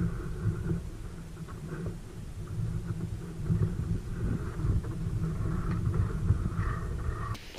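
Wind buffeting the microphone outdoors: a loud, uneven low rumble that cuts off abruptly near the end.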